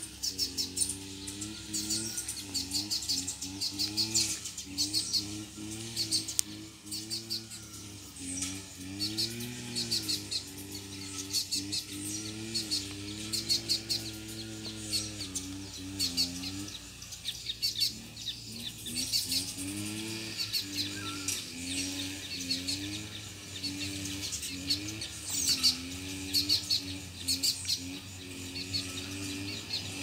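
Wild double-collared seedeater singing, repeating its quick, high chirping song phrases over and over. A low wavering drone runs steadily underneath.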